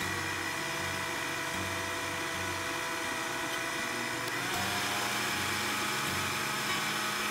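Electric countertop blender motor whirring steadily as it blends a thick jackfruit and banana milkshake. About four and a half seconds in, its pitch steps up as the blender is switched to a higher speed.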